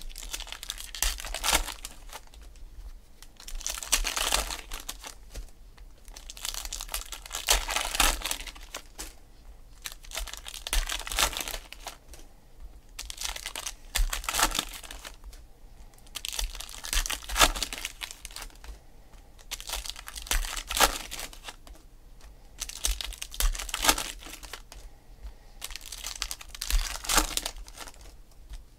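Foil wrappers of Donruss Optic football card packs being torn open and crinkled by hand, one pack after another, with a burst of crinkling every few seconds.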